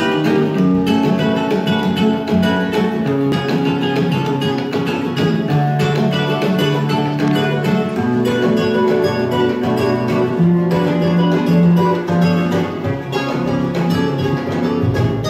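Guitar music, plucked notes changing continuously, playing from a vinyl record on a turntable.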